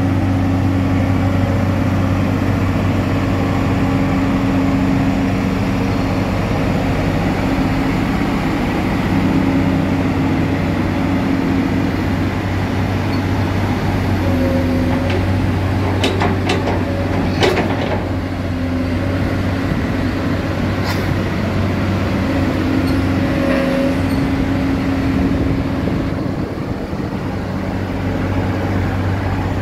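Komatsu PC200 hydraulic excavator's diesel engine running steadily as the boom, arm and bucket are worked, with a higher tone that comes and goes. A few sharp metallic clanks about halfway through.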